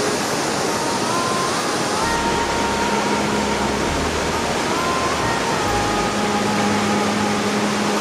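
Akiu Ōtaki waterfall: the steady, loud rush of a large volume of falling water. A faint slow melody of held notes and a low held tone sound over it.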